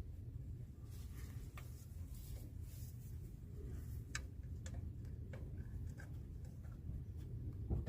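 Faint, scattered clicks and light scraping of hand tools and metal brake parts being worked on a drum-brake backing plate, over a low steady background rumble, with a louder knock near the end.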